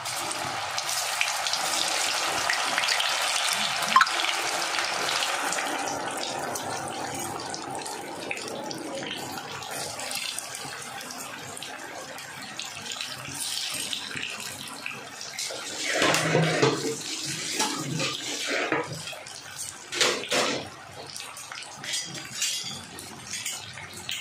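Battered vegetable slices deep-frying in hot oil: a loud sizzle starts as they go in and slowly eases over the following seconds. A sharp click comes about four seconds in, and a run of knocks and scrapes comes later on.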